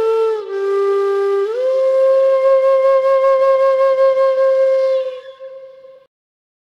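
Film score: a solo flute melody, a few notes and then a slide up into a long, wavering held note that fades out about six seconds in.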